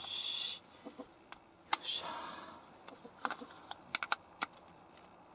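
Screwdriver and screws clicking and tapping against the plastic housing of a minivan's power sliding-door motor unit as it is screwed back together. Two short, shrill sounds come through as well, one at the very start and one about two seconds in.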